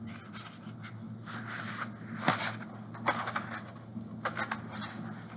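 Picture-book pages being turned and handled: a few scattered paper rustles, scrapes and light taps over a low steady hum.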